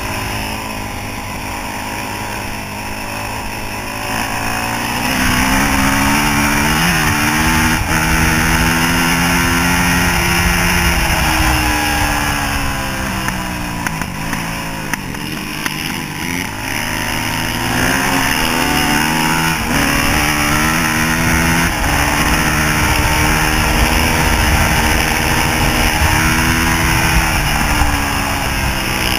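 Yamaha YZ426F single-cylinder four-stroke dirt bike engine under way, its pitch rising and falling with the throttle, easing off briefly about halfway and pulling again, heard from the rider's chest with wind rushing over the microphone.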